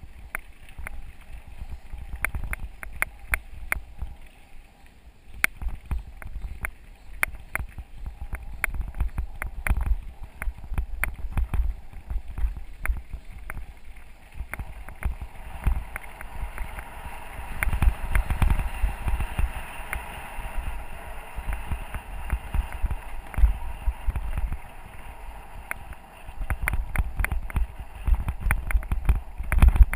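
Mountain bike rolling over a dirt and gravel forest road: rattling clicks from the bike jolting over bumps, tyres crunching on loose gravel, and low wind rumble on the microphone. The tyre noise thickens into a steady hiss from about halfway through.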